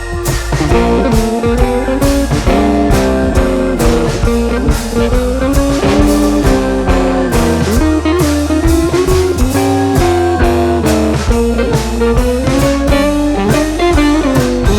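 Blues-style instrumental music: a guitar playing a lead line that slides up and down over bass and a steady drum beat.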